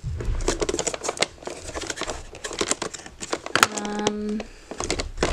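Boxed toy dragon being turned over in the hands: the cardboard and plastic packaging crinkles with many small clicks and taps, and a short steady hum sounds about three and a half seconds in.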